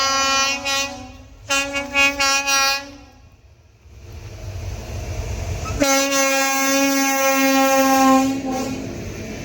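WAP7 electric locomotive's horn sounding repeatedly on approach: a blast and a quick run of short toots, then after a pause one long blast of about three seconds. The low rumble of the approaching train grows under it.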